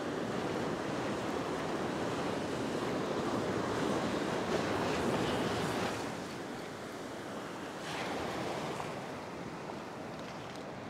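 Ocean surf breaking and washing up the sand in a steady roar. It swells to its loudest in the middle, drops off about six seconds in, then rises again briefly near eight seconds.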